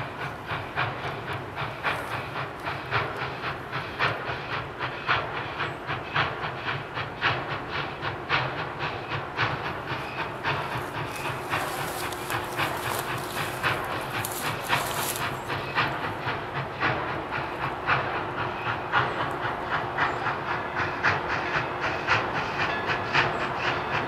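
CNJ 0-6-0 steam locomotive No. 113 and its train running, with a rapid, irregular clatter of short beats over a steady hiss, getting slightly louder.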